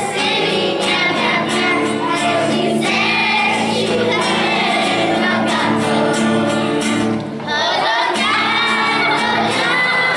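Children's choir singing a song together, accompanied by a strummed acoustic guitar, with a brief break in the singing about seven seconds in.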